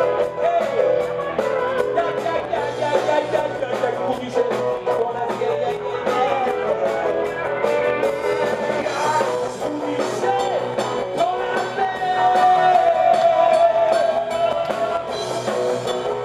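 Live rock and roll band playing, with electric guitar, bass and keyboards under a male singer's vocal. A long held note comes about three-quarters of the way through.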